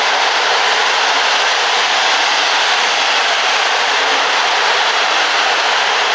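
TLK passenger train's coaches passing close by at speed: a loud, steady rushing noise of wheels on rails and air.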